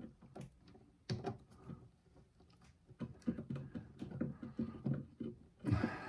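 Electrical wires being twisted together in a plastic wire nut by hand at a metal junction box: scattered small clicks and scrapes, with a quick run of them from about three to five seconds in and a louder brushing scrape near the end.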